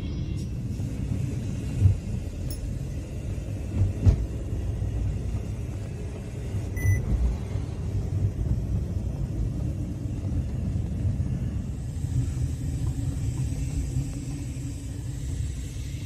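Car ride heard from inside the cabin: a steady low engine and road rumble, with a few short thumps in the first seconds.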